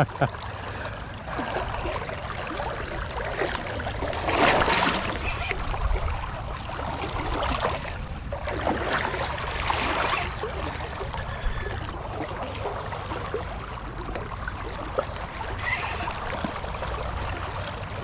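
Shallow river current rippling and rushing steadily over a riffle, with a few brief louder swells of water noise, one about four and a half seconds in and another around nine to ten seconds.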